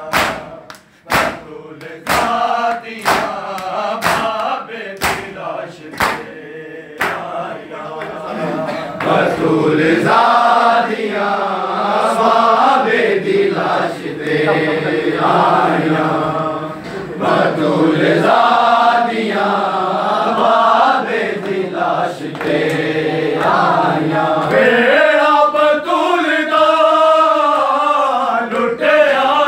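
Matam: men striking their bare chests with open hands in a steady beat for the first several seconds, under a lament. Then a group of men chants a noha in unison, the chant growing fuller and continuous.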